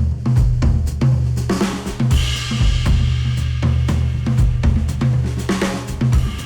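Instrumental music with a full drum kit: kick, snare and hi-hat in a steady beat over heavy bass, with cymbal washes about two seconds in and near the end. It is played back through a headphone and picked up by microphones.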